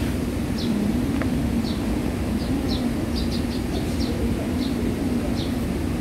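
Short, falling bird chirps, about one a second with a quick run of several near the middle, over a steady low rumble.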